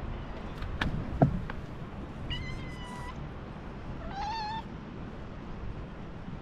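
A cat meowing twice, two short high meows a little over a second apart, the second rising slightly in pitch. A sharp thump about a second in is the loudest sound.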